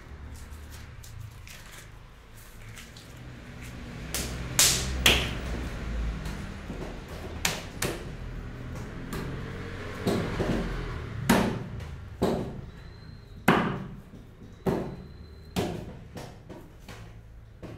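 A lump of clay being wedged by hand on a wooden table: a series of thumps that settles to about one a second in the second half. Before that, plastic wrapping rustles as the clay block is opened.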